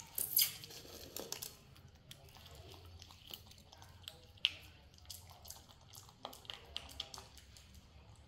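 Two pet macaques eating instant noodles by hand: soft chewing and small clicks and taps of noodles and plate, with a short louder burst of noise just after the start and a sharp click about four and a half seconds in.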